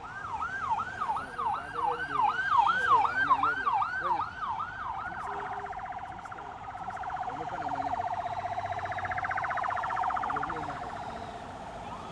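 Motorcade escort siren in a fast yelp, sweeping up and down about three times a second, then switching to a rapid warble that swells and fades near the end.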